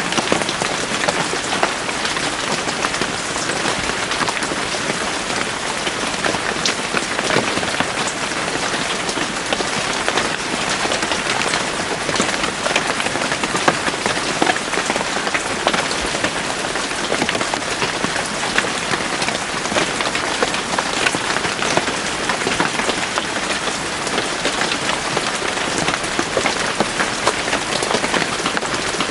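Steady rain falling in a forest, a dense even hiss with the patter of many separate drops, unchanging throughout.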